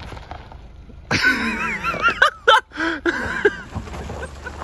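A person's wordless voice with a wavering, gliding pitch, from about a second in to about three and a half seconds in, over a low steady rumble.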